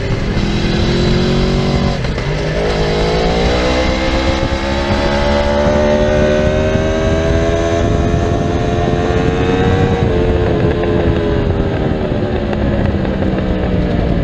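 Aprilia RSV4's V4 engine running hard on track. Its pitch climbs slowly for several seconds as the bike accelerates, then falls away near the end as it comes off the throttle, over steady wind and road noise.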